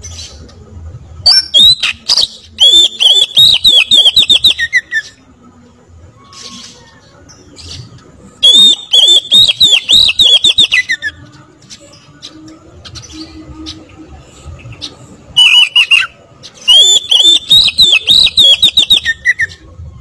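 A caged oriental magpie-robin (kacer) sings in three loud bursts of fast repeated notes, each lasting a few seconds, with short pauses between them.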